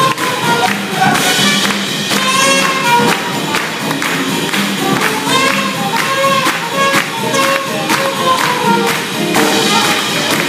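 Live swing band playing an up-tempo tune with a steady beat.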